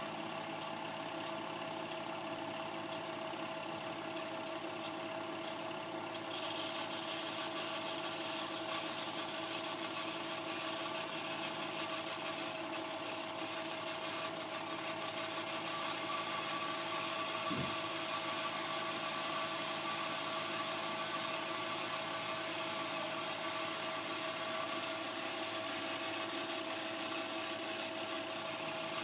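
Steady mechanical running of a home-movie film projector: an even whirr with a constant hum-like tone and hiss, and one brief low knock partway through.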